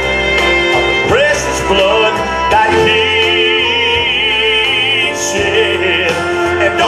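Men's gospel vocal group singing with musical accompaniment; in the middle, a voice holds a long note with vibrato.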